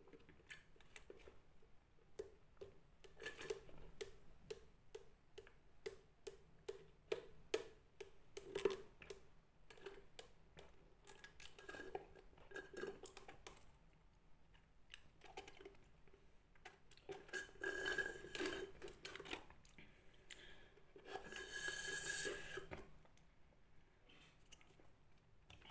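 Close-up gulping and swallowing as a soft drink is drunk through a straw from a paper cup: a long run of small, evenly repeated swallow clicks. Two louder, noisier stretches come about two-thirds of the way in and near the end.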